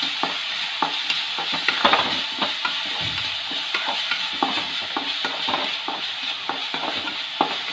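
Chopped onions sizzling in hot coconut oil in an aluminium kadai, with a wooden spatula scraping and knocking against the pan in quick, irregular strokes as they are stirred. The onions are being sautéed soft with a little salt, not browned.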